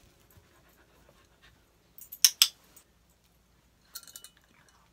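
Dog giving two short, sharp barks in quick succession about two seconds in, followed a couple of seconds later by a brief burst of light clicking.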